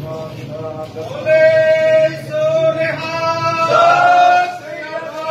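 A man's voice singing long, loud held notes, with a short rise in pitch about four seconds in.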